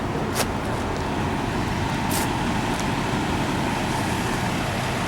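Steady road-traffic noise, with two short clicks about half a second and two seconds in.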